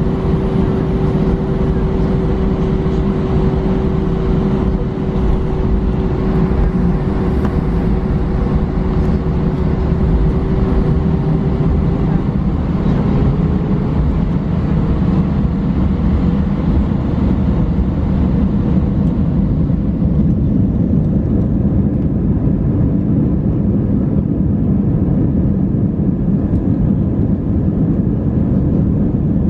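Cabin noise inside a taxiing Airbus A319-131, its IAE V2500 engines at idle giving a steady rumble. A steady whine rises slightly and fades out about halfway through.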